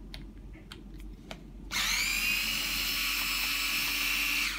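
Cordless drill-driver backing out a handle screw, running steadily from a little under two seconds in to the end, after a few light clicks of tools being set in place.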